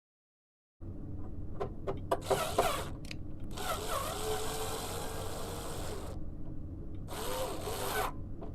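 Power drill/driver running in two goes, about two and a half seconds and then about one second, with a whine that bends in pitch as it drives fasteners, mounting a VAV reheat control board. A few sharp clicks and taps come before it, and a steady low hum runs underneath; all of it starts abruptly nearly a second in after silence.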